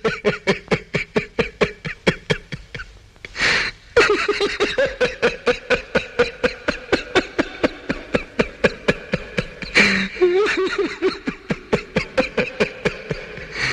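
A boy laughing in long runs of quick, rhythmic giggles, about six a second, broken twice by a sharp in-breath, about three and a half and ten seconds in.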